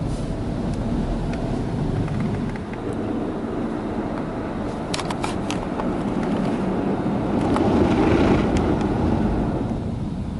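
Automatic car wash brushes scrubbing over the car, heard from inside the cabin: a steady rumbling swish that swells about eight seconds in, with a few sharp taps around five seconds.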